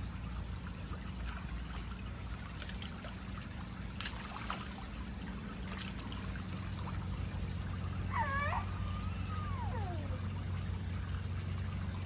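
Steady trickle and splash of water falling from an inflatable whale pool's hose-fed spout into the pool water. A short sliding cry sounds about eight seconds in.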